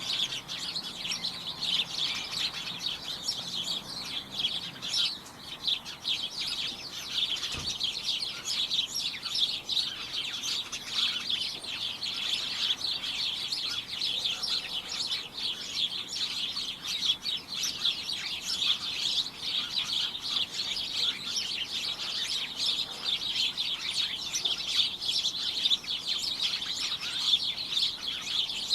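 A flock of small birds chirping continuously, many short overlapping high chirps forming a steady cacophony, with one brief low thump about seven and a half seconds in.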